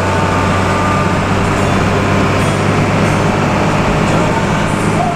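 Intercity bus engine running steadily, a constant low drone with road noise, heard from inside the passenger cabin.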